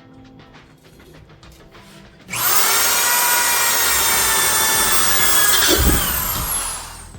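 Electric drill motor switched on about two seconds in, running at a steady high speed with a whine, then a short low rumble and a falling whine as it spins down near the end.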